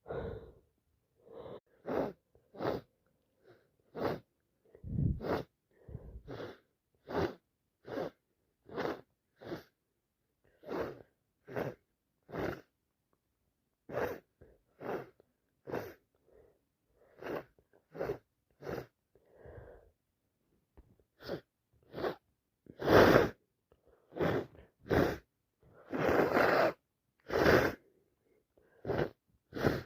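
A person with a head cold sneezing repeatedly: a run of short, sharp nasal breaths and sneezes, about one to two a second, with the loudest, longest bursts about three-quarters of the way through and near the end.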